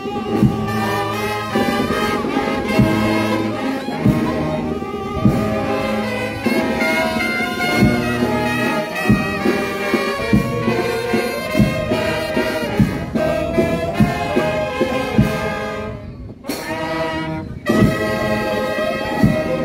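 Brass band with trumpets and trombones playing a slow procession march over a steady drum stroke about once a second, with a short drop in the music about sixteen seconds in.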